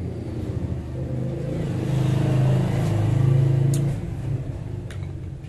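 A motor vehicle's engine running close by, growing louder about two seconds in and fading after about four seconds, as it passes. A couple of sharp clicks come near the end.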